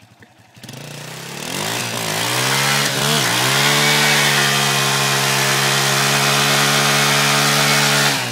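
Honda CRF230F dirt bike's single-cylinder four-stroke engine revving up hard and held at high revs while the rear tyre spins on oiled pavement in a burnout. The revs climb about half a second in, waver briefly, then hold steady until they drop back right at the end.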